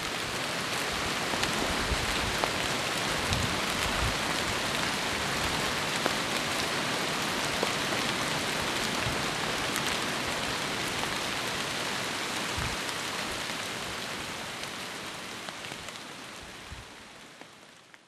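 Steady rain, with many small drop ticks scattered through it, fading out over the last five seconds or so.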